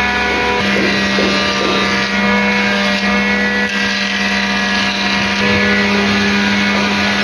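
Electric woodworking machine running with a steady, high-pitched motor hum that holds one pitch throughout.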